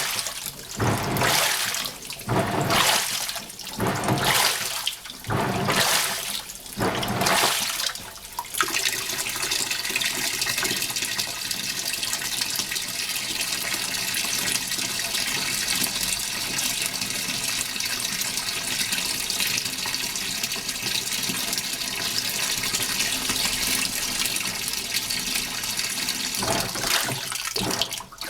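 Hitachi NW-42EF top-loading washing machine: water sloshing in surges every second or two as the wash agitates, then from about eight seconds in a steady rush of water pouring into the tub, with the sloshing starting again right at the end.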